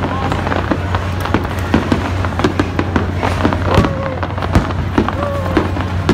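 Aerial fireworks bursting and crackling: an irregular string of sharp pops and bangs over a steady low hum.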